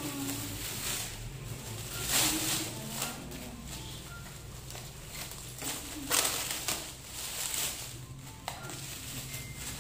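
Clear plastic packaging crinkling and rustling as a parcel is unwrapped by hand, loudest in a few bursts.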